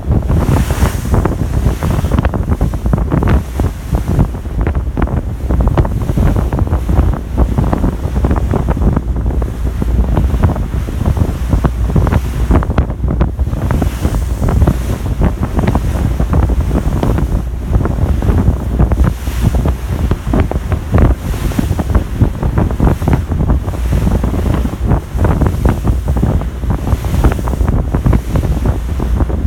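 Strong wind buffeting the microphone on a moving ferry's open deck, a continuous low rumble and flutter, over the rush of the sea.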